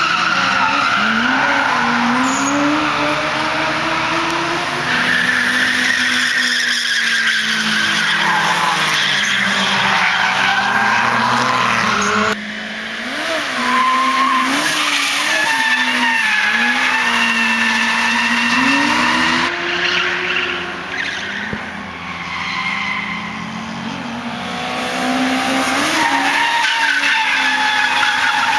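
Rear-wheel-drive Daihatsu Opti kei car drifting: its small engine revs up and down through the corners while the tyres squeal as they slide. The sound jumps abruptly twice and eases off for a few seconds before the car comes round again.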